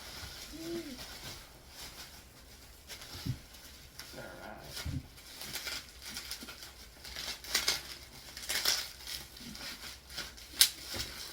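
Bubble wrap and packing material rustling and crinkling in short, irregular bursts as it is pulled off a hardcover book, with a few sharper crackles.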